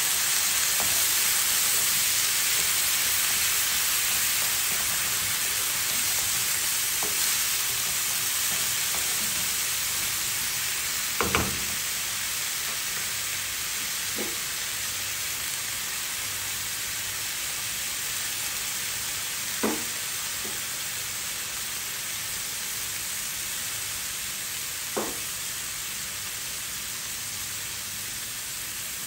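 Tomato purée and chopped onions sizzling in a nonstick frying pan, a steady hiss that slowly eases off. A few short knocks against the pan, a double one about a third of the way in and single ones later, come from the wooden spatula stirring.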